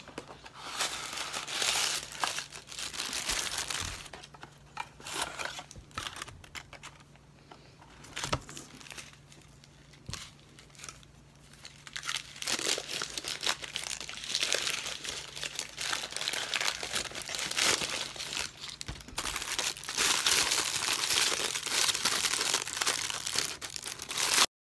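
Paper wrapping crinkling and rustling with scattered small clicks as a packaged item is unwrapped by hand. The rustling eases off for a few seconds in the middle, picks up again, and cuts off suddenly near the end.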